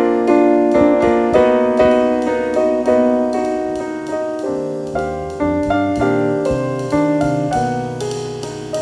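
Solo piano playing a slow passage of chords. Each chord is struck and left to ring and fade before the next one, at about one chord a second.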